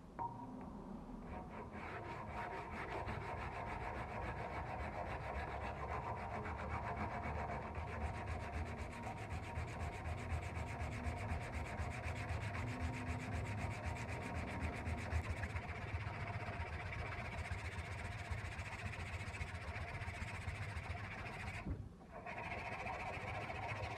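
Hand sanding a rusty steel cleaver blade: a wooden sanding block with abrasive paper is rubbed back and forth over the metal in steady, rapid strokes, scraping off rust. It breaks off briefly near the end, then starts again.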